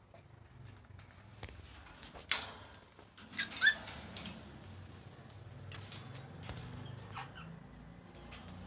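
White cockatoos making short sounds: a sharp, sudden sound a little over two seconds in, then a couple of short chirps about a second later, with faint clicks and shuffling the rest of the time.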